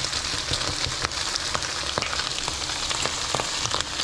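Fried rice with vegetables frying in butter in a hot skillet, a steady sizzle dotted with many small crackles, as raw eggs are dropped into the middle of the pan.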